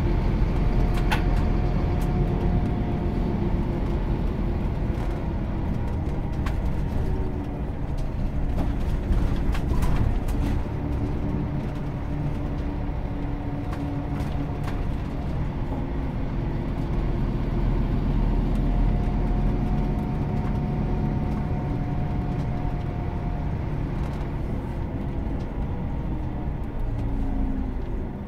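Cabin noise of a Scania Citywide diesel-electric hybrid bus under way: steady low drivetrain and road rumble, with a few sharp rattling clicks in the first half and a faint steady whine that comes and goes.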